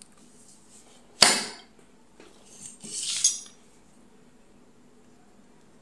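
A single sharp clack about a second in, then a rattling scrape a little later, as the torch body and its wired charging board are handled and set down.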